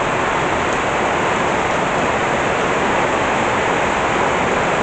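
Torrential tropical rain pouring down in a steady, unbroken downpour.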